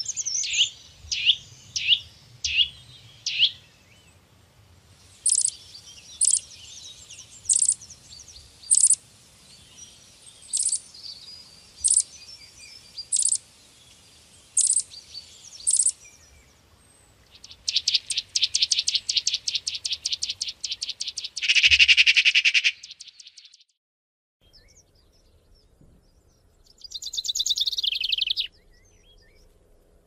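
Birds chirping and calling in a series of separate passages: first a run of quick falling chirps, then about ten sharp single notes a second or so apart, then a rapid trill ending in a loud harsh call, and later a falling call.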